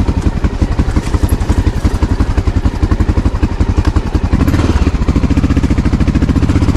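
2007 Honda XR650L's single-cylinder engine running at low revs in a steady, rapid thumping, picking up a little about four seconds in.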